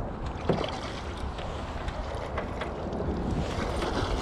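Wind buffeting the microphone over a steady low rumble, with a single knock about half a second in. Toward the end, water splashes as a hooked pike thrashes at the surface and is scooped into a landing net beside the boat.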